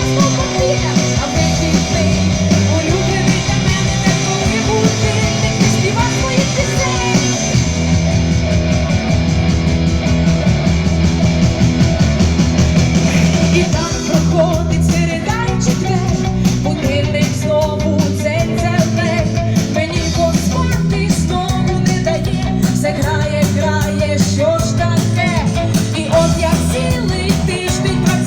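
A song played by a band, with a singing voice. About halfway through the arrangement changes and the vocal line stands out more clearly over a steady beat.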